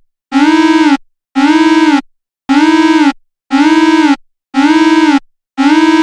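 Emergency alert system alarm tone: a loud tone pulsing about once a second, each pulse about two-thirds of a second long, bending slightly up at its start and down at its end.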